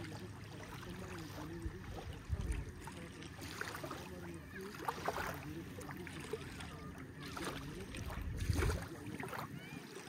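Bathing-beach ambience: water lapping at the shore, with distant voices of bathers running through it.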